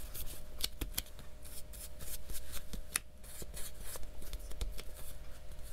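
A brush scrubbing loose gold leaf over the sticky spots on a paper page: a run of light rustles and many short sharp ticks.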